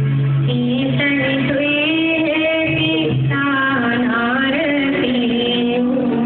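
A song playing: a sung melody over instrumental accompaniment with a steady bass line.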